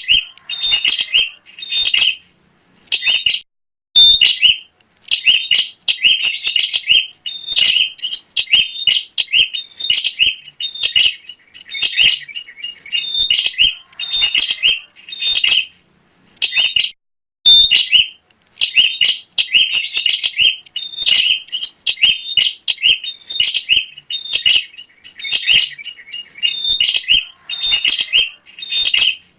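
Prenjak (bar-winged prinia) singing loudly, rapid high chirping phrases repeated in bursts with short silent gaps between them.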